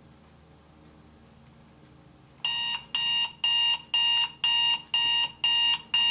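Online countdown timer's alarm going off as the countdown reaches zero: a repeating electronic beep, about two beeps a second, starting a little over two seconds in.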